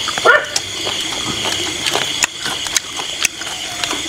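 Steady chirring of insects, with scattered sharp clicks and a brief voice sound near the start.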